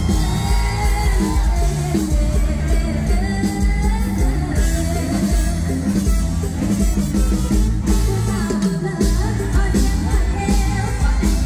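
Thai mor lam music played live: a singer's wavering melody over a band with a steady drum and bass beat.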